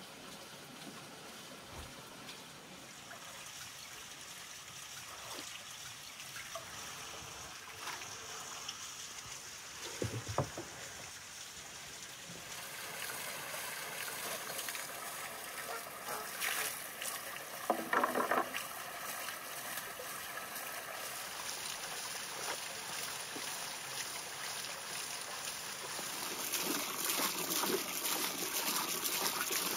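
Water running and splashing into a wooden barrel, getting louder near the end. A couple of brief knocks stand out in the middle.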